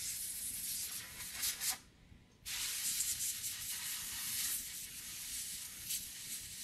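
Can of compressed air hissing as it is sprayed through a thin straw into an opened smartphone, cutting out briefly about two seconds in and then resuming steadily.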